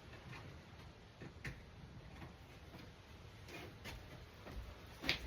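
A few faint, irregularly spaced light taps and clicks of wooden jig parts and a peg being handled during glue-up, with a sharper click near the end.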